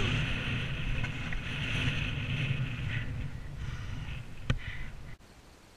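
Mountain bike rolling over rough, wet grass: a steady rushing rumble of wind over the bike-mounted camera's microphone and tyres on turf, with one sharp click a little after four seconds. The sound stops abruptly about five seconds in.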